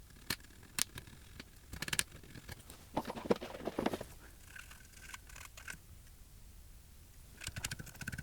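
Spudging tool scraping conformal coating off a TV power-supply circuit board: short, irregular scrapes and taps, with a longer, busier run of scraping about three to four seconds in.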